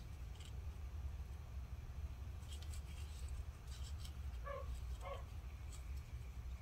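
Faint rubbing and light clicks of an alcohol-dampened paper towel being dabbed and scrubbed on a laptop logic board connector, over a low steady rumble. Two short squeaks come about four and a half and five seconds in.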